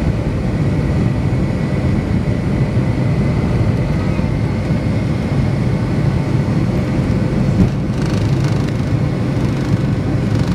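Boeing 757-200 engines at takeoff power heard inside the cabin over the wing, a steady low rush with a faint whine running through it, as the airliner accelerates down the runway. A few brief rattles come in late on.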